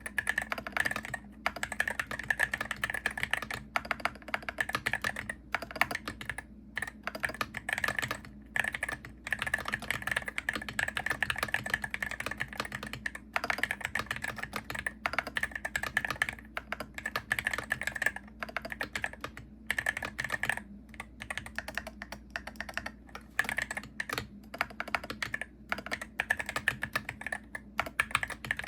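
Typing on a Hero68HE gaming keyboard: rapid runs of key clicks with brief pauses between them.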